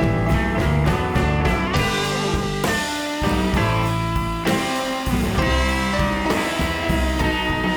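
Background music: a rock-style track with electric guitar, bass and drums.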